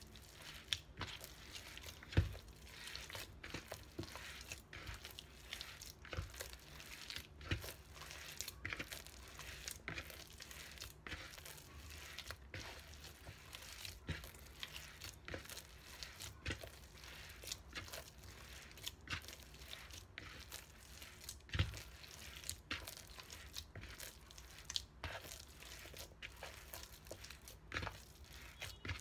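Hand kneading soft bakpia dough in a plastic bowl: sticky squishing and squelching, about one or two squeezes a second, with two louder thumps, one about two seconds in and one near 22 seconds.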